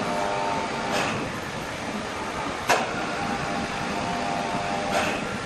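Machinery running steadily, with a faint whining tone that comes and goes, and three sharp knocks: one about a second in, the loudest near the middle, and one near the end.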